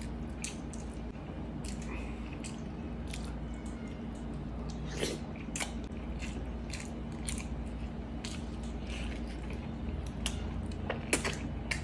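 Close-miked eating: biting into and chewing braised pork hock (pata in Coke), heard as many short, irregular mouth and handling clicks over a steady low hum.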